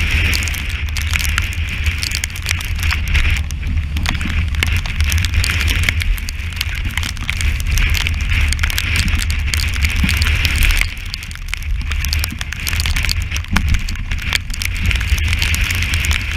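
Strong wind buffeting the camera's microphone with a heavy low rumble, while sea spray and water drops spatter against the camera housing in a dense crackle of sharp ticks. The buffeting eases briefly about eleven seconds in.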